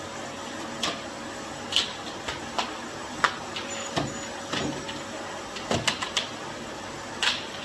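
Canister vacuum cleaner running with a steady hum, the nozzle knocking and clicking against the floor now and then as it is pushed along.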